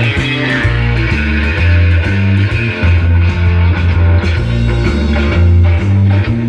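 Rock music with guitar and a heavy bass line playing through a homemade boombox's speakers, driven by a TPA3116D2 Bluetooth amplifier board.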